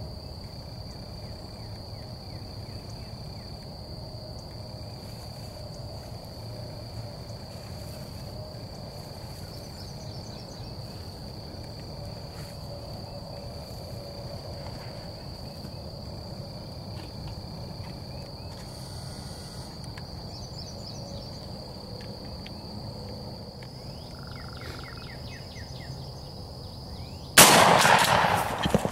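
A single loud shotgun blast near the end, fired at a gobbler turkey at close range. Before it there is a long quiet stretch with a steady high-pitched whine, a few short bird calls and low rustling.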